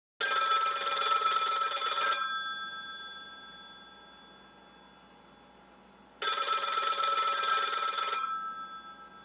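Telephone bell ringing twice: two rings of rapid bell strikes, each about two seconds long, starting about six seconds apart, each fading away after it stops.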